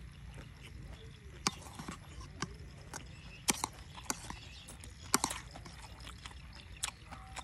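Eating sounds: sharp, irregular clicks and crunches, about seven over the few seconds, over a low steady hum.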